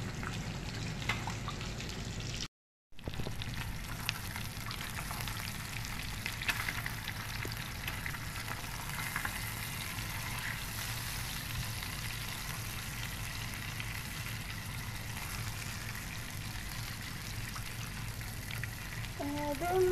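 Salmon fillets sizzling steadily as they fry in foaming fat in a pan, turned now and then with a silicone spatula. At the very start a cream sauce is being stirred, and the sound cuts out completely for a moment at about two and a half seconds.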